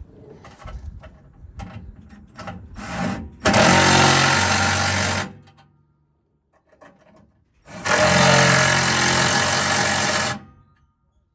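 Handheld power tool run in two bursts, one of about two seconds and a longer one of nearly three seconds, each starting and stopping abruptly, after a few short knocks and rattles.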